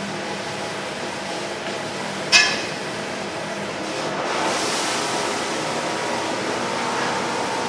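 Burger-shop kitchen noise: a steady hiss, one sharp metallic clank about two seconds in, and the hiss swelling briefly a little after four seconds.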